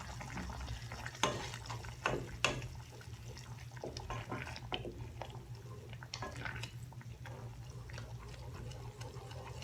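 A spoon stirring simmering tomato sauce in a cooking pan, with scattered wet scrapes and light taps against the pan over a steady low hum.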